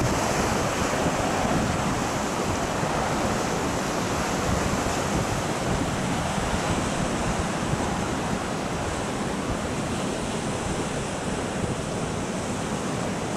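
Rough storm sea: waves surging and breaking with a steady wash of surf, and wind buffeting the microphone.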